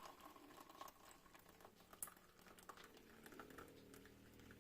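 Near silence: room tone with a few faint ticks and clicks.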